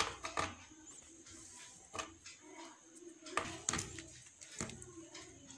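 Scattered light clicks and taps of hands handling a USB charging cable and plugging its connector into a USB socket on a switchboard, with a pair of sharper clicks a little after the middle.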